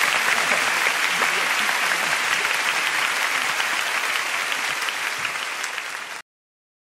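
A large theatre audience applauding, a dense steady clapping that eases slightly and then cuts off suddenly about six seconds in.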